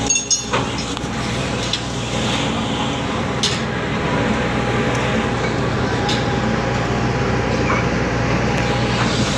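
Steady drone of ship machinery, a low hum with a noisy wash over it, with a few sharp knocks and clanks, the first about three and a half seconds in.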